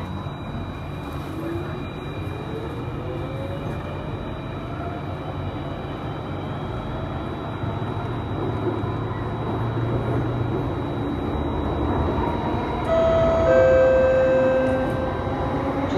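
Singapore MRT Circle Line train accelerating through a tunnel, heard from inside the leading car. Its running rumble grows louder and its motor whine rises in pitch over the first several seconds. Near the end a two-note falling chime sounds.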